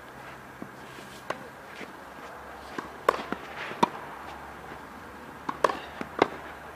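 Tennis balls struck with a racket and bouncing on a red clay court, with footsteps scuffing the clay. A few sharp hits come about three seconds in, just before four seconds, and twice more near the end.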